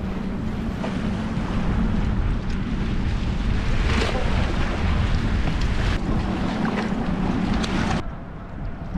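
Wind buffeting the microphone over surf washing against the rocks, with a wave surging more loudly about four seconds in.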